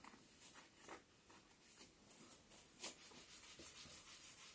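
Near-silent room with a few faint knocks, then the light rubbing strokes of a marker writing on a whiteboard in the second half.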